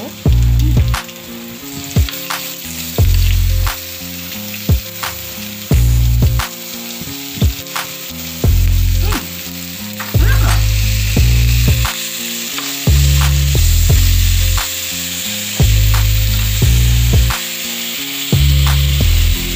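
Pork belly and sausage slices sizzling on a hot griddle pan. Background music with a heavy bass beat, louder than the sizzle, plays over it.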